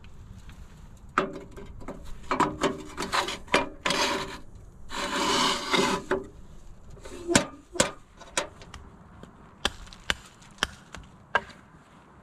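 Scraping, rubbing and knocking as a metal tray of food is pushed and shifted into place against wood, in a dense run of a few seconds, followed by scattered single sharp clicks and taps.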